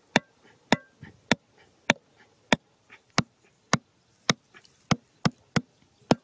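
A hatchet knocking on the top of a bamboo stake, driving it into the ground: about a dozen sharp, evenly spaced strikes, a little under two a second, coming a bit faster near the end.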